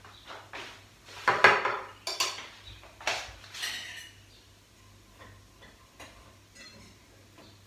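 Dishes and cutlery being handled: a run of clattering knocks and clinks, the loudest about a second and a half in, followed by lighter scattered clicks.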